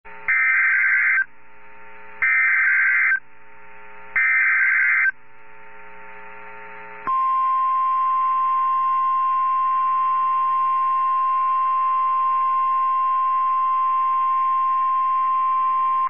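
NOAA Weather Radio Emergency Alert System alert for a tornado warning. First come three short bursts of SAME digital header tones, each a harsh warble about a second long and spaced about two seconds apart. Then the steady single-pitch warning alarm tone sounds for about nine seconds.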